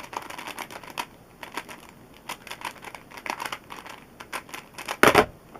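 Original Rubik's Cube, lubricated with Maru lube, being turned fast in a speedsolve: irregular rapid clicking and scraping of the plastic layers. A single loud clack comes about five seconds in.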